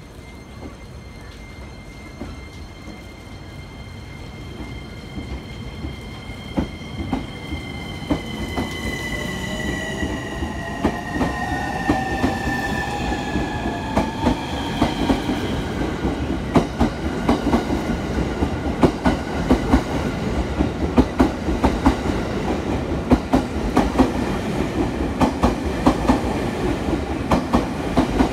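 E231 series electric train pulling away: its inverter-driven motors whine in gliding tones that shift in pitch as it takes power. Then the wheels clack over the rail joints ever more often as it gathers speed, with a rising rumble.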